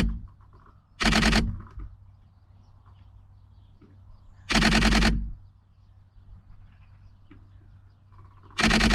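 DSLR shutter firing in rapid bursts of continuous shooting: three short bursts of fast clicks about a second in, midway and near the end, with faint birdsong between them.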